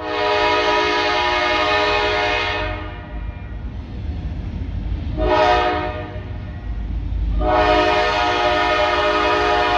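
Diesel freight locomotive's air horn blowing a long blast, a short one about five seconds in, and another long blast starting about two seconds later, over the low rumble of the passing train.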